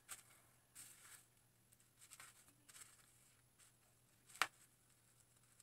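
Faint, scattered scratching and rustling of a highlighting hook pulling strands of hair through the holes of a highlighting cap, with one sharp click a little over four seconds in.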